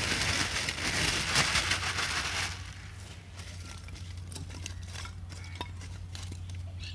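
Lumps of charcoal poured from a plastic bag into a concrete-block grill pit, a dense rattling clatter with the bag rustling for the first two and a half seconds. After that come lighter scattered clicks as the pieces are shifted by hand.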